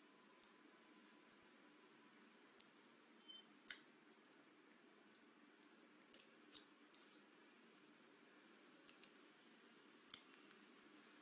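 Computer mouse clicking: several short, sharp clicks at irregular spacing over faint room tone.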